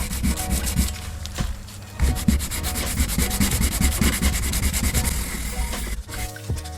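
Fast, repeated sanding strokes of abrasive rubbing on a metal model-gun part, stripping its plating so it can be refinished. The strokes pause briefly about six seconds in.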